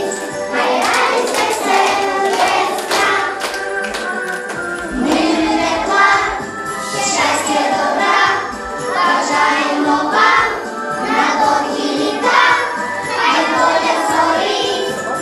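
A children's song with group singing over an instrumental backing track.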